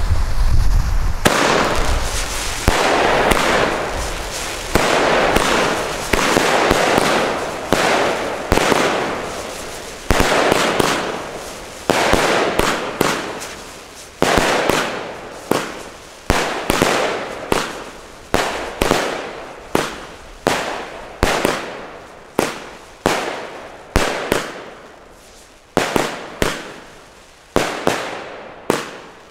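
Two Weco Stormy Flash whirl-effect firework batteries firing together: a steady run of shots, about one a second, each sending up a hissing, spinning whirl that fades out. Towards the end the shots come quicker and sharper.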